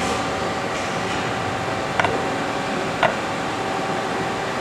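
Two light metallic clinks, about a second apart, as the aluminum clutch basket is shifted into place on the aluminum supports and steel plate. They come over a steady background hum.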